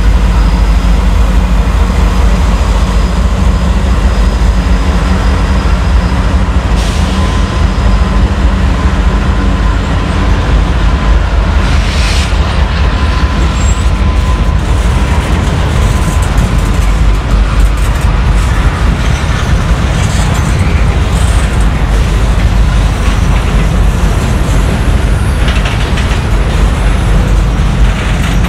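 Freight cars of a slow-moving train rolling past close by: a loud, steady rumble of steel wheels on the rails, with a few short knocks along the way.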